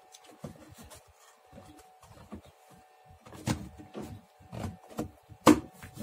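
Plastic door trim panel of an Opel Cascada being pressed and tapped onto the door by hand, its retaining clips seating. A few faint clicks, then from about three seconds in a run of knocks, with one sharp snap near the end.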